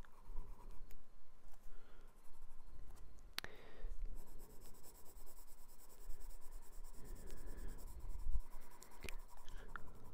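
Graphite pencil scratching across sketchbook paper as lines are shaded and darkened, with two sharp clicks, one about three seconds in and one near the end.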